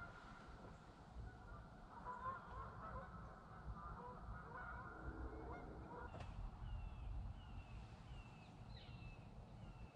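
Geese honking faintly, a jumble of calls through the first half or so. From about six seconds in, a string of short falling calls repeats about every two-thirds of a second.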